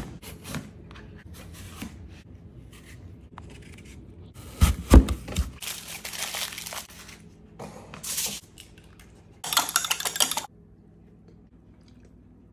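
Kitchen food-prep handling: light clicks of a knife cutting into apples, a few loud knocks about five seconds in, then aluminium foil crinkling and tearing in several stretches as cored apples are wrapped in it.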